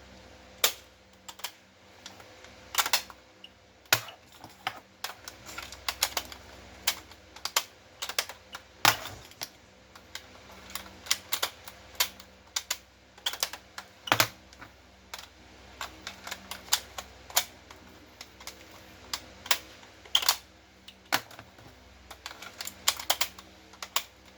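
Irregular sharp plastic clicks and clacks of a CYMA airsoft shotgun being handled and its pump action worked, with the shells ejecting after a hair-clip mod to the ejection.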